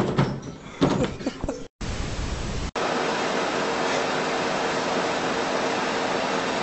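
Short irregular knocks and clatter, then, after a brief break, a treadmill's motor and belt running with a steady, even whirr and faint steady tones.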